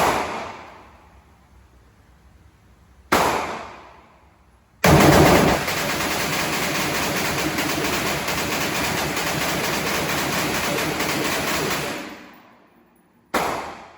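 AR-15 pistol with a Franklin Armory binary trigger emptying a 60-round magazine. The trigger fires on both pull and release. One shot comes near the start and another about three seconds in, then about seven seconds of continuous rapid fire with the shots running together, and a last single shot near the end.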